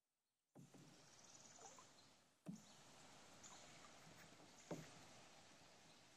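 Canoe paddle strokes in calm river water: three pulls about two seconds apart, each starting with a soft knock followed by a swishing of water that fades.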